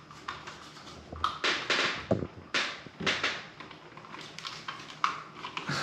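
Hands working a plastic smoke detector and its mounting parts: a string of short scrapes and sharp clicks.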